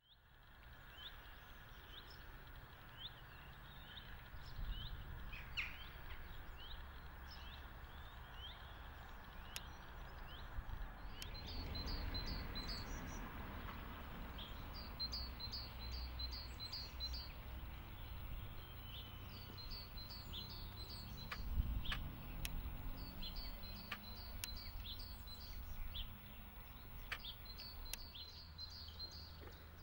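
Birds singing, with short high chirps and several quick runs of repeated high notes, over a steady low rumble.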